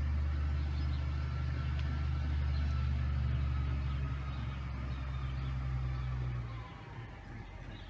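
A motor vehicle engine running steadily with a low hum, which stops abruptly about six and a half seconds in.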